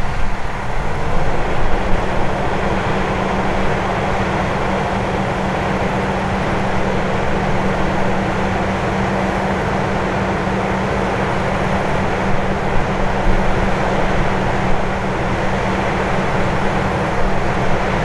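Claas Lexion 600 combine harvester working through a barley crop: a steady engine and threshing noise with a constant low hum, unchanging throughout.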